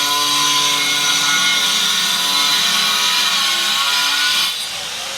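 Electric power tool running steadily with a whine, as on a building site where tile and stone are being cut, then stopping about four and a half seconds in.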